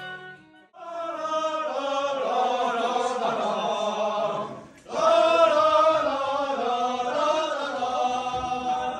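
Several voices singing together in two long drawn-out phrases, with a brief break about halfway.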